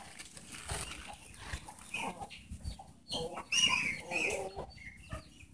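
A chicken clucking a few times, with the rustle and crackle of dry leaves being handled.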